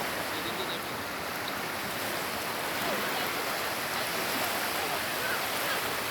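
Sea surf washing steadily onto the beach.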